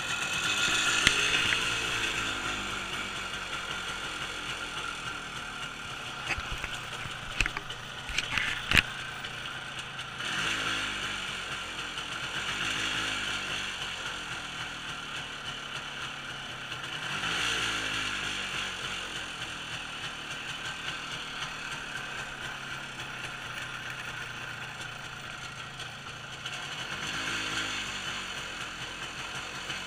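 A 1986 CZ 175/487's single-cylinder two-stroke engine running after a cold start, with a rattly mechanical idle. The revs rise and fall in short blips four times, about every six to ten seconds. A few sharp knocks come close together about a third of the way in.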